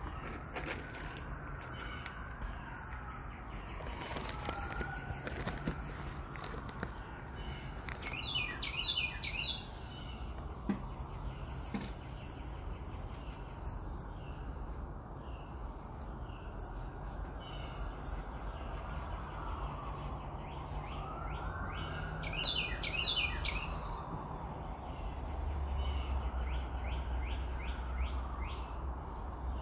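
Low, steady engine and road rumble of a car driving in traffic, growing a little louder near the end. Over it are short high chirps and twittering, with two busier bursts of chirping, one about a third of the way in and one about three-quarters through.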